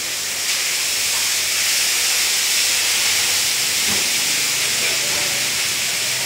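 A loud, steady hiss that does not let up, strongest in the high range, with a faint soft knock about four seconds in.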